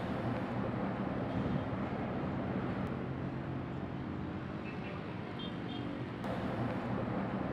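Steady traffic noise of a busy city street, with cars and buses running past and a low engine hum. Two faint, short high chirps come a little past five seconds in.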